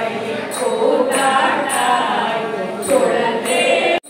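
Voices singing a devotional chant together over evenly spaced metallic clinks, about one every three-quarters of a second. The sound cuts off abruptly near the end.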